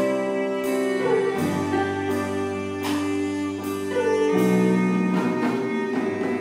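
Live band of cello, electric guitars, keyboard and drums playing slow held chords with cymbal strokes; the chords change about a second and a half in and again about four seconds in. The recording quality is poor.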